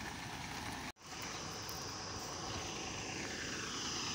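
A heavy diesel truck engine running steadily with a low drone, briefly cut off about a second in.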